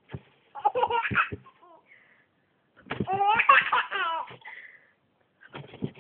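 A baby laughing in short bursts, the longest running for over a second about three seconds in.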